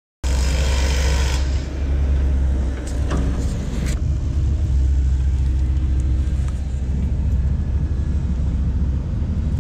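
Wind buffeting the microphone: a heavy, uneven low rumble, with a couple of light knocks about three and four seconds in.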